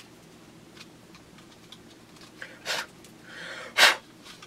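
Hands unpacking and handling a plastic airsoft pistol: a few light ticks, then two short, loud scraping rustles about a second apart in the second half, the second louder.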